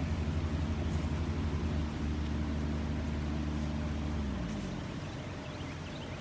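An engine running with a steady low hum; about four seconds in its pitch drops and it fades, leaving a weaker hum.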